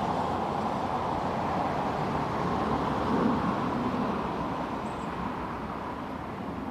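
Street traffic noise: a steady rush of passing road vehicles that swells slightly about three seconds in, then slowly fades.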